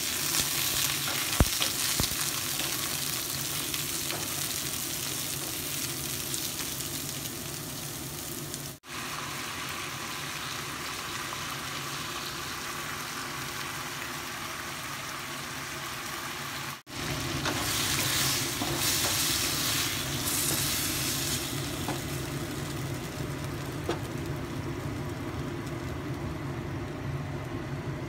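Silk squash (patola) and black fungus sizzling in hot oil in a wok as they are stir-fried with a wooden spatula, with one sharp knock about a second and a half in. The sizzling drops out for an instant twice.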